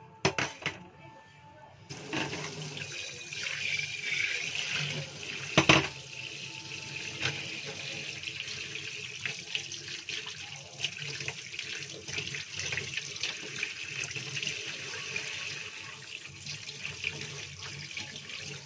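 Kitchen tap running into a stainless steel sink, water splashing over salmon steaks as they are rinsed by hand; the water starts about two seconds in. A sharp knock about six seconds in is the loudest sound.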